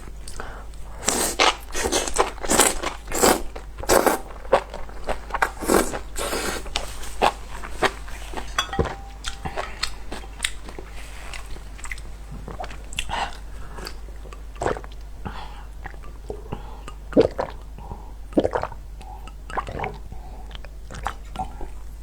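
A person biting and chewing spicy enoki mushrooms close to the microphone, in mukbang style. A quick run of bites and chews fills the first seven seconds or so, then they come more spaced out.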